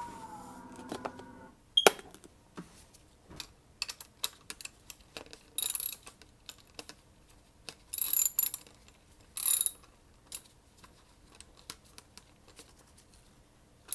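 Socket wrench ratcheting in short bursts while a part is tightened into the rear of a Panzerarms AR12 shotgun, among scattered metal clicks and taps. A sharp click about two seconds in is the loudest sound.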